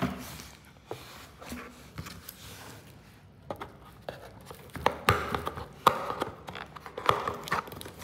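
Corrugated cardboard box flaps being folded open and handled by hand: scraping, rustling and light knocks of cardboard, sparse at first and busier and louder from about halfway through.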